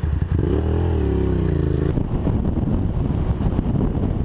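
Sport motorcycle engine running under the rider, heard from a helmet camera with wind rush. The revs swell and then ease off between about half a second and two seconds in, then settle into a rougher steady run.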